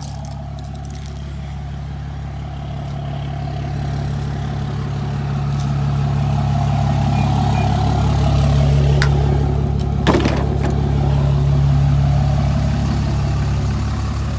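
Motor vehicle driving, heard from inside: a steady low engine and road drone that grows louder over the first several seconds, with one sharp click about ten seconds in.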